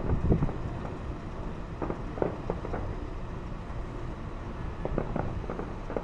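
Distant fireworks going off in a string of short, sharp bangs and pops, loudest in a cluster at the start, with more around the middle and near the end, over steady background noise.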